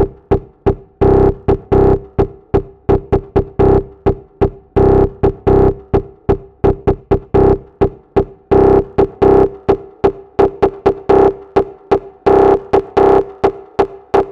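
Electronic background music: a synthesizer beat of short rhythmic stabs on one held note.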